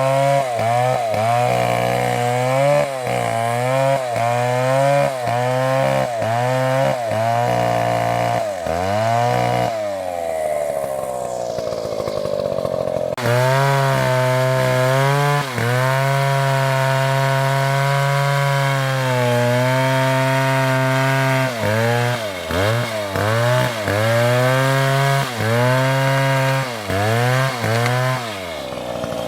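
Two-stroke chainsaw running at high revs while cutting wood, its pitch dipping and recovering over and over as the chain bogs under load. About ten seconds in, the engine note falls away. Some three seconds later it snaps back to a steady full-throttle note, and then the dipping cuts resume.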